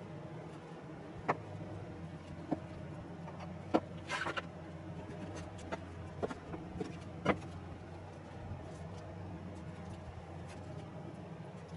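Steady low room hum with a few scattered small clicks and ticks, including a short cluster of them about four seconds in.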